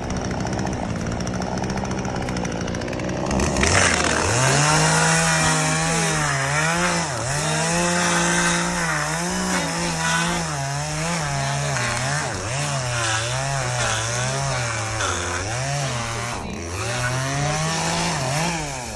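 Gas chainsaw running hard from about three and a half seconds in, its engine note rising and dipping as it bogs and frees in the cut through a queen palm trunk.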